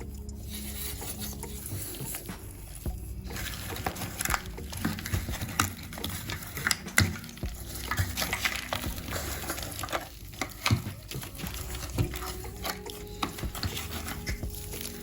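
Small tools and model-car parts being handled on a work surface: irregular clicks, taps and scraping.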